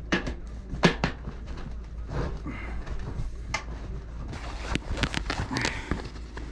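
Stovepipe being handled and fitted through a yurt's canvas wall: scattered knocks and clicks of the pipe pieces, with canvas rustling between them.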